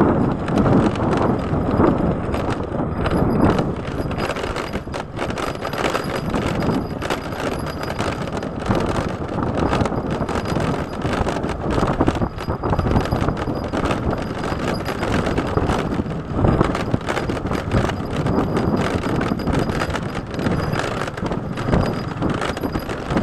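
Ride noise on a Honda motor scooter: the engine running under wind noise, with irregular knocks and rattles as the bike goes over a rough village road.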